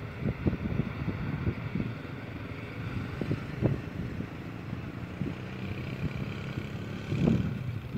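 Distant ATR 72-600 turboprop engines (Pratt & Whitney PW127M) running as a steady low hum at the runway end, with irregular low thumps of wind buffeting the microphone, the strongest about seven seconds in.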